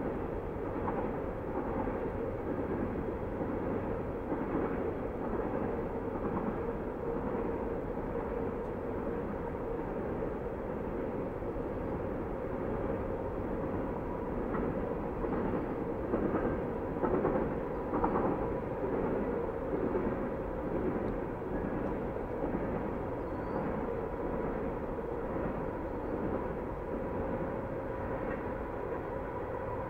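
A Canadian National freight train heard passing at a distance, as echoes: a continuous rumble of wheels and locomotives with a faint steady tone running through it. The sound swells a little just past halfway and then eases back.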